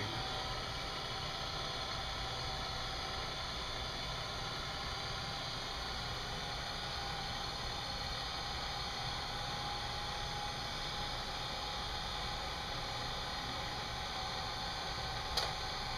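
Kodascope Eight Model 70 8mm film projector running, its motor and film mechanism giving a steady whir with a low hum. Near the end comes a click as the film begins jumping, the sign that its slack loop has been lost.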